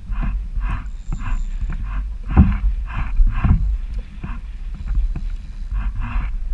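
Water splashing and slapping against a kayak in short bursts about twice a second, over a steady low rumble of wind on the microphone.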